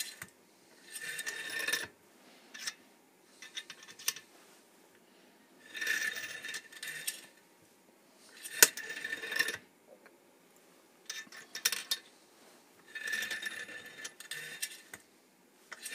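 Dillon Super Swage 600 primer pocket swager cycled by hand through its strokes, making bursts of metallic clatter and sharp clicks every couple of seconds. The sounds come as the handle is pulled and released and the cable-driven return moves the case out and back into swaging position.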